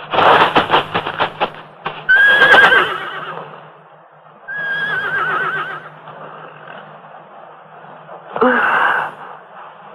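A restless, frightened horse whinnying three times, each call warbling up and down, after a quick run of sharp knocks at the start.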